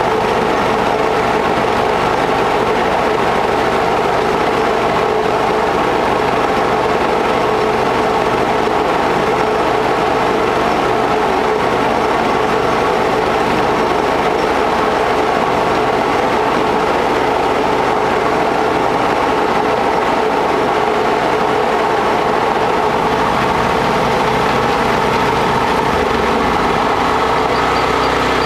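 Shaker table plant running steadily while concentrating iron-rich ore: a continuous mechanical hum and rattle from the drive machinery, with water washing across the table deck. The low hum shifts slightly near the end.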